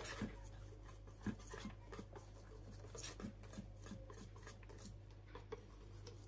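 Utensil stirring pancake batter in a bowl: faint, irregular light scraping and clicking against the bowl.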